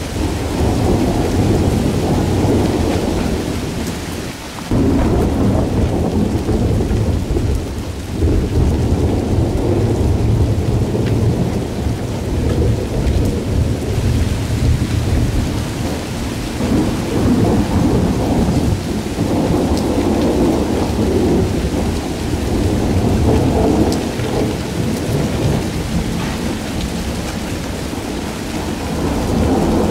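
Thunderstorm with rain: a continuous low rumble that swells and eases, under the hiss of rain, briefly dropping away about four and a half seconds in.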